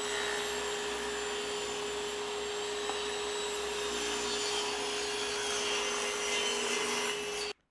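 Table saw running steadily while a board clamped to a jointer sled is fed through the blade, ripping a straight edge along the board; the motor's steady hum stops abruptly near the end.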